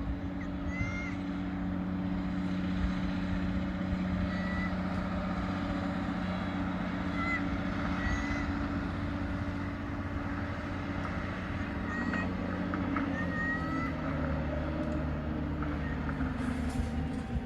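Diesel engine of heavy machinery running steadily, with short high-pitched chirping squeaks now and then.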